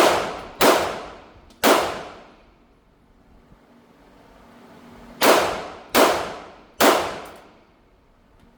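Six shots from a Taurus TCP .380 ACP pocket pistol in two strings of three: two quick shots, then a third about a second later. About three and a half seconds later the same pattern repeats. Each shot rings out and dies away over about half a second.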